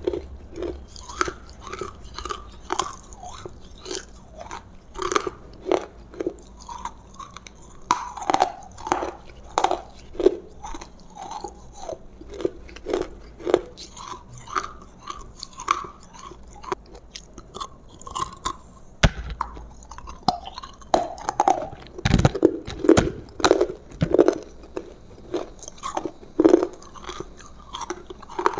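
A person chewing and biting food close to the microphone, short repeated chews and mouth clicks at roughly two a second throughout, with a few sharper bites in the second half.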